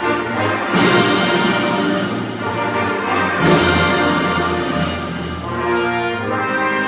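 Full symphony orchestra playing a loud, full passage of a festival prelude, with brass prominent. There are two bright crashes, about a second in and again midway, and held brass chords near the end.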